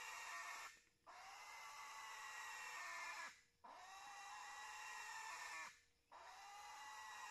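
Piglet squealing in distress while held down for castration: long, high-pitched squeals of about two seconds each, each falling slightly, broken by short pauses.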